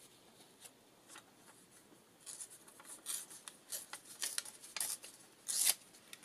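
Paper being torn in a run of short rips, a strip coming off a piece of ephemera, with rustling between; the longest and loudest rip comes near the end.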